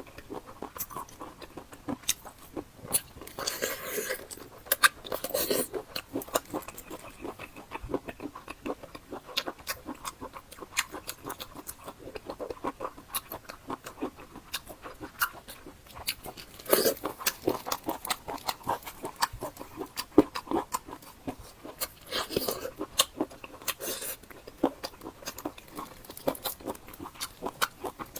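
Close-miked chewing and biting of a large octopus tentacle: a steady stream of wet mouth clicks and smacks, with louder bursts of biting now and then.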